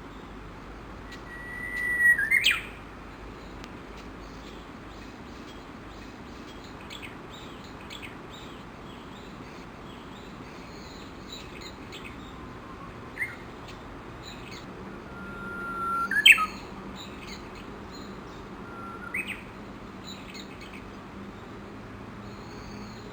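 Japanese bush warblers singing: two full songs, each a long held whistled note swelling in volume and broken off by a quick high flourish, about two seconds in and again about sixteen seconds in. A shorter phrase comes near nineteen seconds, with faint high chirps scattered between.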